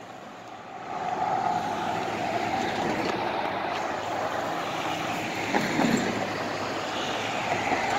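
Steady rushing rumble of a passing vehicle in street traffic, coming up under a second in and holding at an even level.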